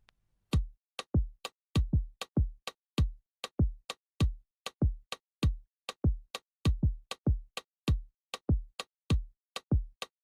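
Background music: an electronic drum-machine beat of deep, booming kick drums with sharp clicking tops, about three hits a second, starting about half a second in.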